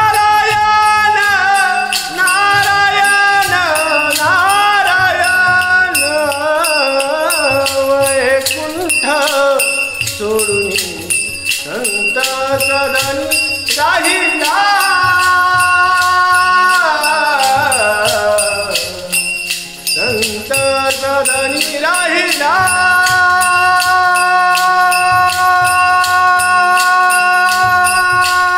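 A Vasudev, a Marathi devotional singer, singing a devotional song solo in long drawn-out, gliding notes over a steady rattling percussion beat. Near the end he holds one note for about six seconds.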